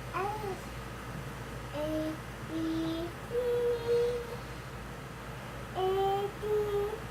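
Young child's voice humming or hooting a string of short held tones, about six of them at different pitches, in a sing-song way.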